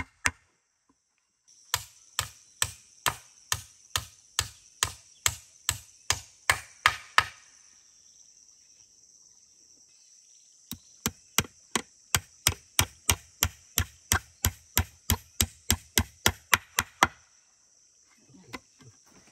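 Nails being driven into a wooden plank with the back of a hatchet: two runs of steady blows, about three a second, with a pause of about three seconds between them.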